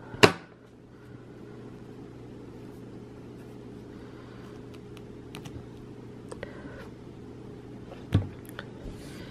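Small clicks and taps from hands handling crochet pieces and tools on a wooden table. The sharpest click comes just after the start and another about eight seconds in, with a few faint ticks between, over a steady low hum.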